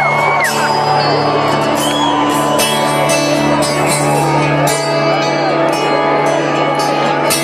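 Live rock band playing a song intro, with steady held low notes and regular drum and cymbal hits, while a large arena crowd cheers, shouts and whistles over it; a long whistle ends just after the start.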